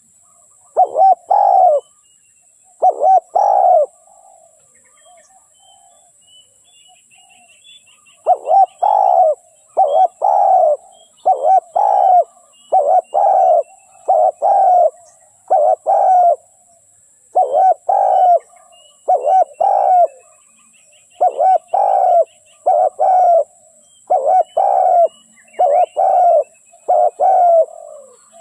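Dove cooing: a long series of short, loud coo notes, often in pairs, with a pause of several seconds about four seconds in. Faint chirps of small birds come between the coos.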